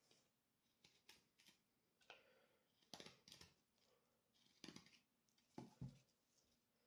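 Jakt Kit KNV 2 knife shaving a wooden stick, a series of short, faint scraping cuts at irregular intervals.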